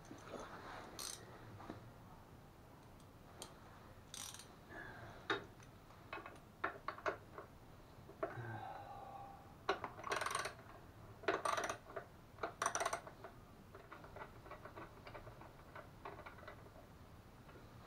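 Faint clicks, taps and scrapes of small metal parts and tools being handled while a bolt is fitted to a mobility scooter's front bumper and frame. A few louder rustling scrapes come about ten to thirteen seconds in.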